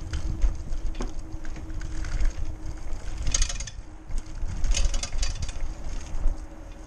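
Lime hire bike being ridden over pavement: a continuous low rumble of the ride with wind on the microphone, a steady hum that stops about three seconds in, and two short bursts of rapid clicking rattle around the middle.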